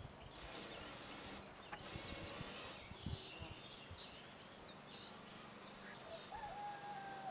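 Common blackbirds at a nest box: a run of short, high chirps, about three a second, from about a second and a half in until past the middle. A steady whistled tone comes in near the end.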